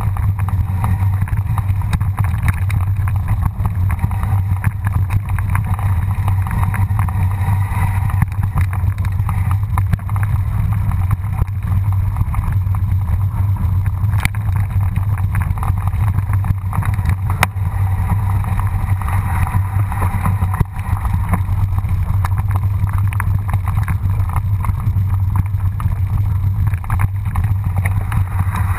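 Wind buffeting the microphone of a camera on a mountain bike riding down a dirt and gravel track, a steady loud low rumble mixed with tyre and frame rattle, with a couple of sharp knocks about halfway through.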